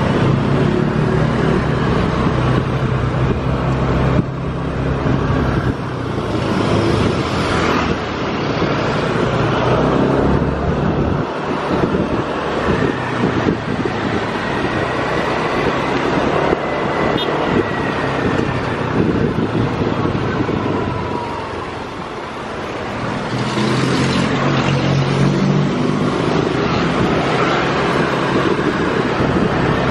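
Yamaha NMAX scooter riding through a village street: its engine running under way with road and wind noise on the microphone. The engine note eases off through the middle and picks up strongly again about three-quarters of the way through.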